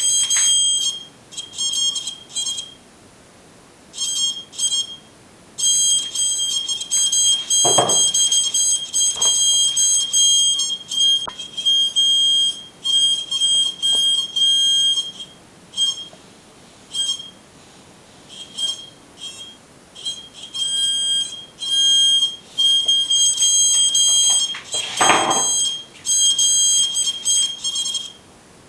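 High, buzzy electronic alarm tone from a PIR motion detector's audio test speaker, switching on and off in bursts of varying length as the detector trips on motion. It gives short beeps at first, then long stretches of tone, with two brief low rushes of noise in between.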